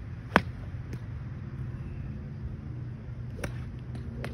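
Golf iron striking a ball off the turf: one sharp, loud crack about half a second in, with several fainter clicks later, over a steady low hum.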